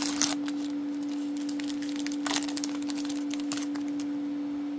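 Thin plastic wrapper of a trading card being torn open and crinkled, in short crackling bursts at the start and again about two seconds in, over a steady low hum.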